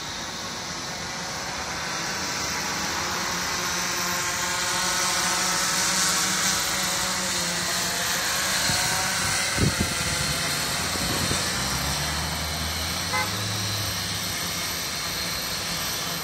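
Electric octocopter (eight-propeller multirotor drone) whirring as it descends and comes down to land, a steady propeller whine with wavering pitch that grows louder as it nears. Two brief knocks sound about halfway through.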